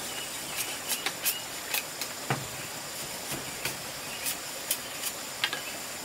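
Bamboo being worked by hand with a knife: scattered, irregular sharp clicks and knocks of blade on bamboo and of bamboo slats tapping together, one fuller hollow knock about two seconds in, over a steady high hiss.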